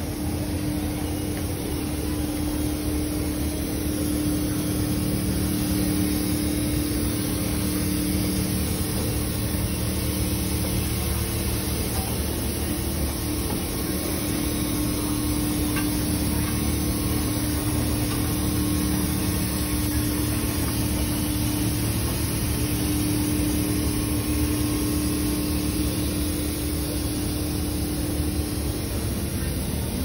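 Mobile misting robot running as it rolls along: a steady fan-like whoosh with a continuous low hum.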